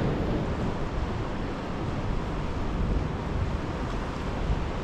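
Steady wind rumbling on the microphone over the wash of ocean surf, with no distinct events.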